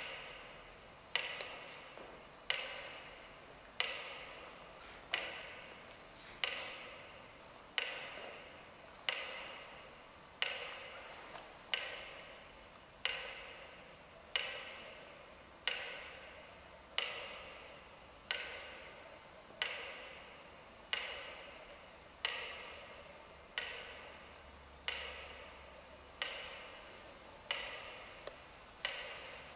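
Slow, evenly spaced knocks, one about every 1.3 seconds and over twenty in all, each ringing out in a long echo of a large, reverberant hall.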